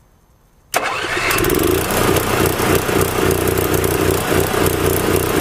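Onan MicroLite 2.8 gasoline RV generator starting up, catching suddenly about a second in, then running loudly and steadily. It is running pretty rough on its old factory air filter and spark plug.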